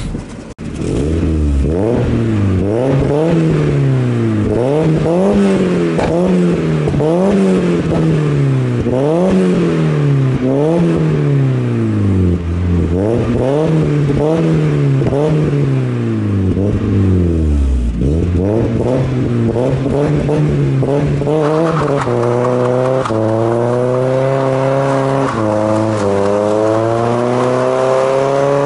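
Mazda MX-5's four-cylinder engine through a decat race pipe and non-resonated backbox with no silencer bung, blipped about a dozen times in quick rises and falls. It then pulls away under throttle, its pitch climbing with a couple of steps. The exhaust is blowing at a joint because the wrong decat is fitted.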